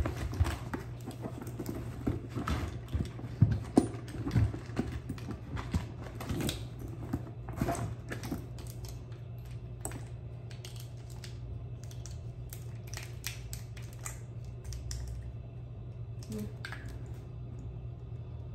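Small hard clicks and clatter of makeup items, such as lipstick tubes, being handled and picked through. The clicks come thick for the first several seconds, then thin out to scattered taps, over a steady low hum.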